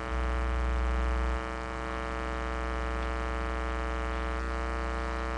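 Steady electrical mains hum with a buzzy stack of overtones, as loud as the speech around it; the low drone swells for about the first second and a half, then settles.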